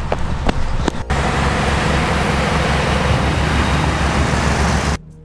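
Quick footsteps and a jostling handheld camera for about a second, then a steady, loud wind buffeting the microphone with a heavy low rumble, cut off abruptly near the end.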